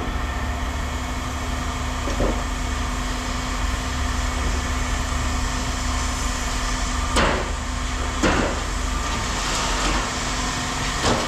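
An engine running steadily with a low hum, with a few sharp knocks about two, seven and eight seconds in.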